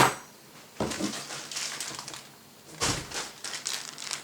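A sharp, loud knock, then a second knock and a duller thump with light rustling and clicks: items and packaging from an RC car kit being handled and set down.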